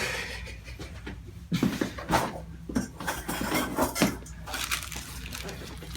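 Several sharp cracks and pops spread over a few seconds as a clavicle is worked in a chiropractic adjustment: the joint releasing as it is loosened.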